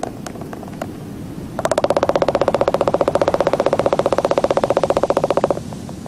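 Albatrosses clattering their bills in courtship: a rapid, rattling run of clacks that starts about a second and a half in, lasts about four seconds, and stops abruptly.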